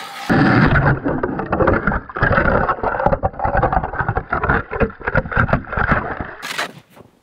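Water churning and bubbling, heard from an underwater camera beneath the ice as a hand ice auger bores through: a muffled, dense crackling rumble that stops about six and a half seconds in.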